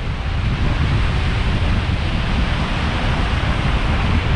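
Scirocco wind buffeting the microphone in a steady low rumble, over the continuous wash of surf on the shore.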